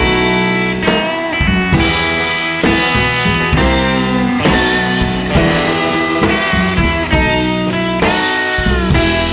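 Background rock music with electric guitar and a drum kit, playing at a steady beat.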